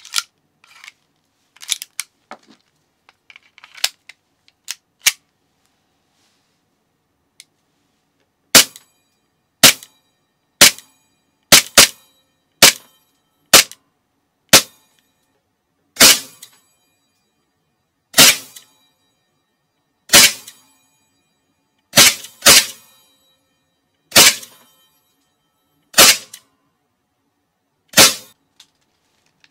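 M9 gas blowback airsoft pistol firing single shots, sharp cracks with the slide cycling. They come about a second apart at first, then about every two seconds, after a few lighter clicks of handling in the first seconds.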